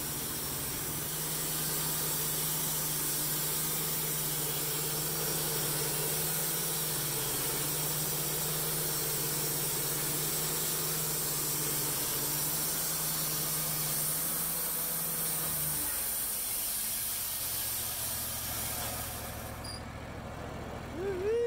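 Wood-Mizer LT15 portable band sawmill running, its band blade cutting through an olive log: a steady hum under a hiss. About three-quarters of the way through, the hum stops and the sound gets quieter.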